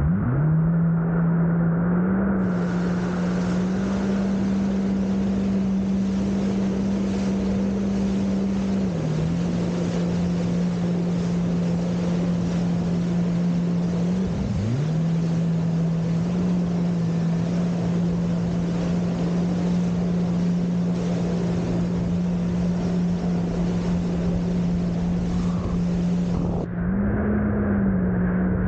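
Personal watercraft (jet ski) engine running steadily at speed, its pitch dipping briefly twice as the throttle eases, over a constant rush of wind and spray.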